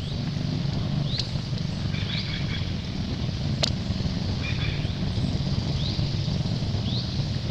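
Outdoor background: a steady low rumble, with short, high rising chirps every second or two and a single sharp click about three and a half seconds in.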